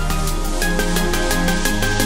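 Electronic background music with a fast, even beat over sustained synth notes and bass.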